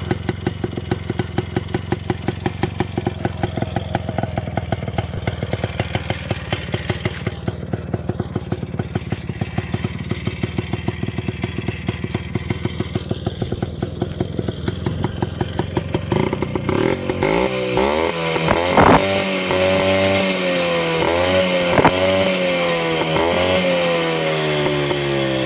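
WSK 125's single-cylinder two-stroke engine idling with a steady, even beat. About two-thirds of the way through it is revved: the pitch climbs and swings up and down, with two sharp throttle blips, and the revs then slowly fall back.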